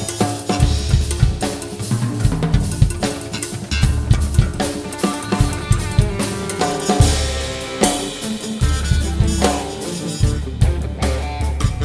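Drum kit played in a busy, continuous pattern of bass-drum hits, snare strokes and rimshots, with sustained pitched accompaniment from other instruments underneath.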